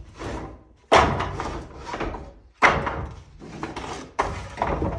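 Scrap wooden boards being thrown down one after another: three loud clattering impacts about a second and a half apart, each dying away over about a second, with a lighter knock just before the first.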